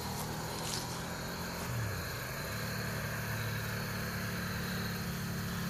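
Low, steady hum of a distant engine, growing a little stronger about halfway through.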